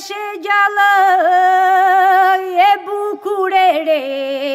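Albanian Lab polyphonic singing a cappella: voices hold long, wavering, ornamented notes between sung lines, over a steady held drone (iso).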